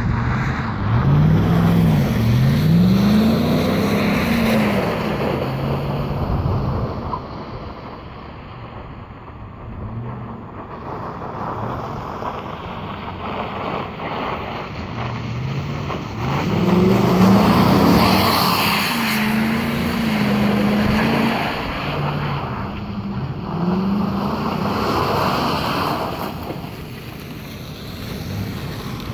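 An engine revving up and down again and again, its pitch rising and falling in repeated swoops, with wind noise on the microphone.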